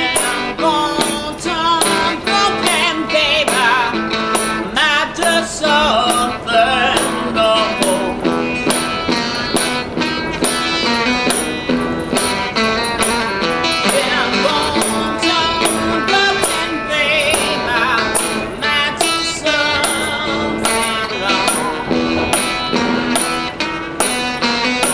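Live country blues: a man singing with a wavering vibrato while playing guitar, over a steady jingling beat that falls about twice a second.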